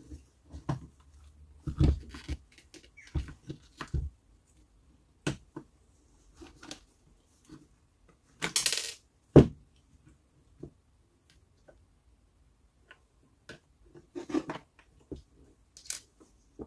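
Plastic housing and internal parts of a Panasonic EY7441 cordless drill being handled during disassembly: scattered clicks, knocks and scrapes as the housing halves are separated and the motor and gearbox assembly is lifted out. A brief scraping rush is followed by the loudest knock about nine seconds in.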